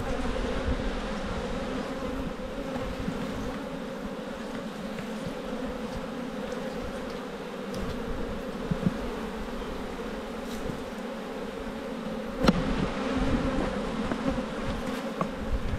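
Honeybees buzzing around an opened hive: a steady, even hum. A single sharp knock sounds about twelve seconds in.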